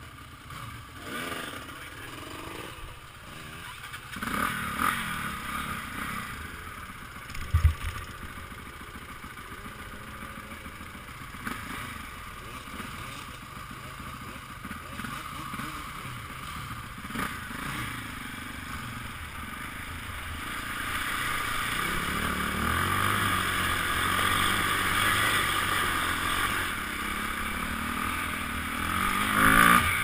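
Trail motorcycle engine ticking over while waiting, with one sharp thump about eight seconds in; from about two-thirds of the way in the engine works harder and a hiss of water rises as the bike rides through the river ford, revving up near the end as it climbs out.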